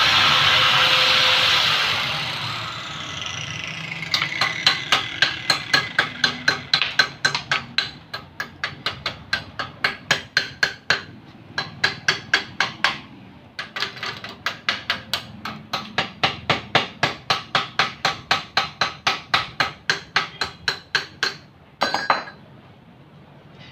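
An angle grinder running at the start, then switched off and winding down with a falling whine. It is followed by rapid, even metal-on-metal tapping on the steel frame, about three or four strikes a second with a short pause partway through, and a brief burst of noise near the end.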